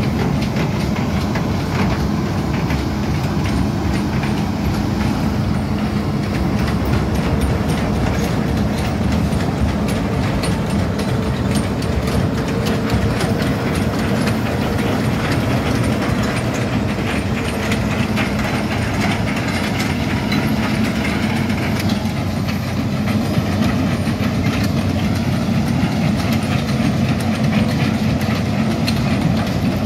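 Hitachi Zaxis 210 amphibious excavator travelling on its pontoon tracks: its diesel engine runs with a steady hum under a continuous clatter of the track links.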